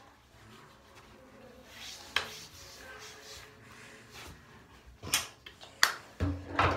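Handling noises close to the microphone: a few sharp clicks and knocks, with the loudest, heaviest bumps near the end, over a faint rubbing hiss.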